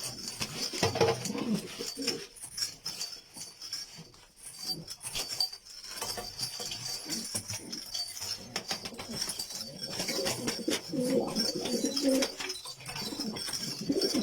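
Domestic Kish pigeons cooing, in low rolling calls that come and go, with the loudest bouts about a second in and again near the end.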